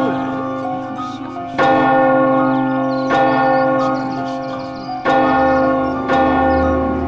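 A large court message bell (chuanxin zhong) being struck again and again, about every one and a half to two seconds. Each strike rings on and fades under the next. It is rung as an alarm to summon the king to court.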